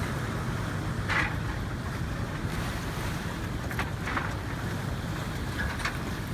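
Water rushing along a sailing yacht's hull with wind on the microphone, and a steady low hum underneath. A few brief hissing splashes come about a second in, around four seconds and near the end.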